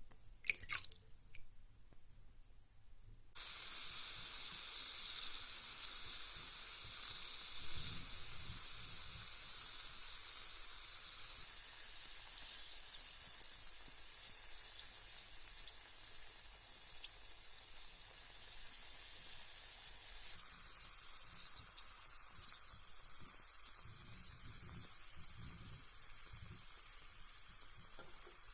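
A few drips and splashes of water. Then, about three seconds in, a carbonated bath bomb starts a steady, high fizzing hiss as it dissolves in the water.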